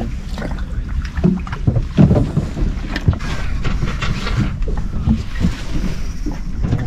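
Wind buffeting the microphone aboard a small fishing boat, a steady low rumble, with a few knocks of gear on the boat, the loudest about two seconds in.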